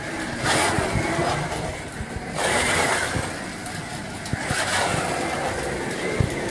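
A 1:32-scale Carrera Digital 132 slot car running laps on a plastic track: the whine of its small electric motor and the rattle of the car over the track, swelling three times as it passes close by.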